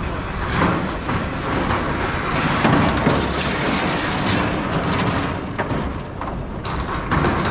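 Metal scaffold parts sliding down a long sheet-metal chute, a continuous clattering rattle with many small knocks.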